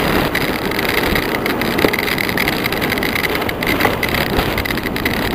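Steady wind rush buffeting the microphone of a camera riding on a bicycle descending a mountain road at speed, with a few small knocks from bumps.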